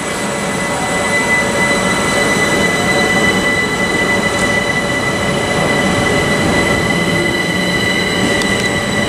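A Southeastern Class 375 Electrostar electric train pulls away from the platform. Steady high whines ride over the rumble of its wheels on the track, and it grows louder in the first second or so.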